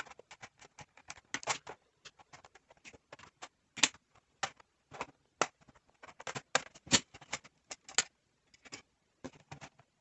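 Fingers working the plastic back access panel of a Dell Inspiron N5110 laptop loose: irregular light clicks, taps and scrapes of fingertips and plastic on plastic, with a few louder sharp clicks as the panel's clips let go.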